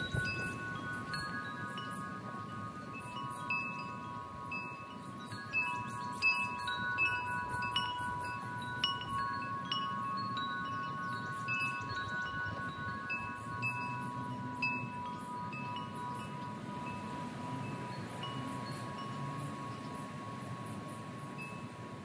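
Wind chimes ringing on and off, several tones sounding together and each slowly dying away after it is struck.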